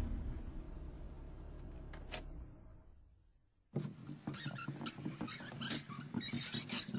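Car pulling over and stopping, its low engine and road rumble fading away over about three seconds, with a couple of sharp clicks as it dies. After a moment of silence comes a busy run of squeaks and knocks.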